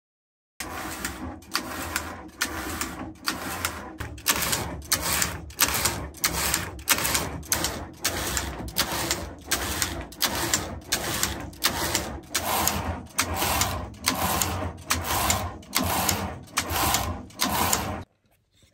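Hand-operated flatbed knitting machine, its carriage pushed back and forth across the needle bed in a quick, even rhythm of clattering strokes, about one and a half a second. It starts about half a second in and stops abruptly near the end.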